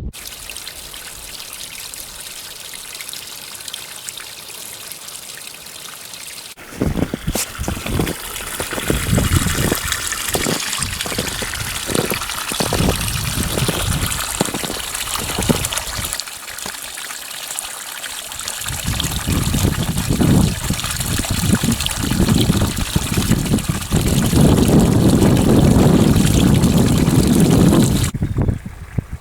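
Creek water running steadily, with gusts of wind buffeting the microphone from about seven seconds in, strongest near the end.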